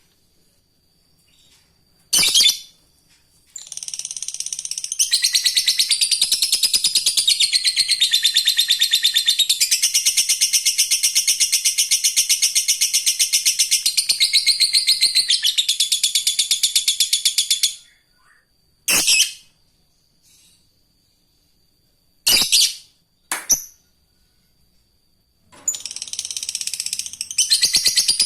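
Lovebird ngekek: one long, very fast, high-pitched chattering trill lasting about fourteen seconds. It is followed by a few single sharp calls, and a second chattering trill starts near the end.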